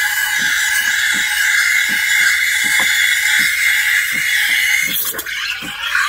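Neretva espresso machine's steam wand hissing and squealing in milk in a stainless steel pitcher while frothing, with a steady low pulsing about two to three times a second beneath it. About five seconds in the sound briefly dips and changes.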